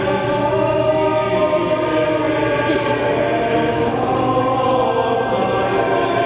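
Choral music: a choir singing long held chords.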